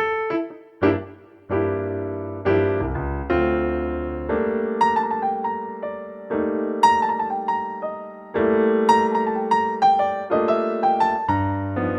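Background music: a piano playing slow, sustained chords and single notes.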